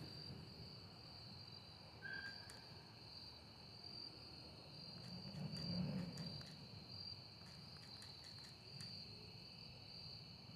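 Faint, steady high-pitched chirring of insects, slightly pulsing, with a few soft taps scattered through the middle.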